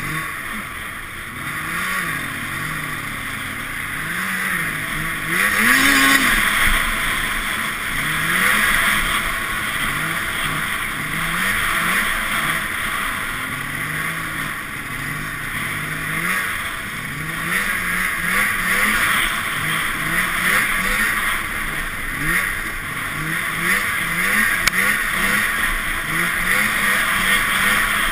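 Arctic Cat Sno Pro snowmobile's two-stroke engine running under way, its pitch rising and falling again and again as the throttle is worked on and off, faster in the second half. A steady rushing noise sits over it throughout.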